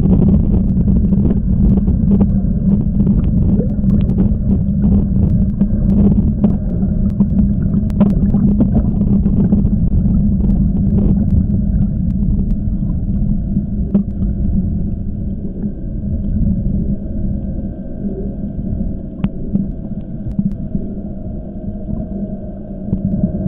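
Muffled underwater sound in a swimming pool: a steady low rumble and hum, with many short clicks and splashes from a swimmer's strokes and kicks over the first half that thin out later.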